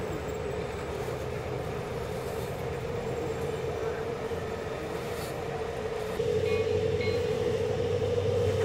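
G-scale model train running along the garden railroad track, a steady hum that gets louder about six seconds in.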